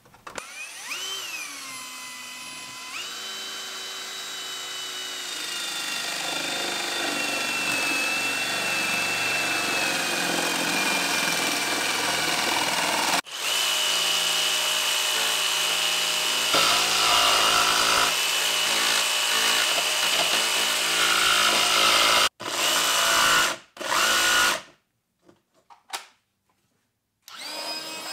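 Electric skateboard drive motor running on a battery, spinning its lifted wheels with a high electric whine. It rises in pitch about a second in as it spins up, then holds a steady whine that slowly sinks in pitch, and the sound cuts off abruptly a few times.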